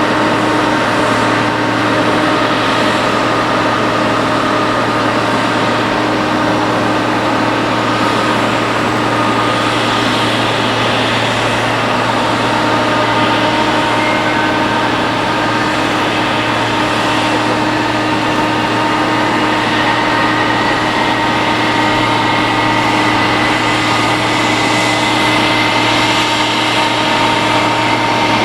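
Boeing 777-300 airliner's twin turbofan engines running at low power: a steady jet whine over a rushing noise, with one high tone slowly rising through the second half.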